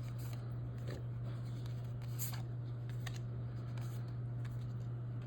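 Magic: The Gathering cards being handled and slid past one another, a few short faint rustles and flicks, over a steady low hum.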